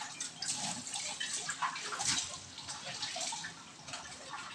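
Kitchen tap running into a stainless steel sink as dishes are rinsed under it, with scattered light knocks and clinks.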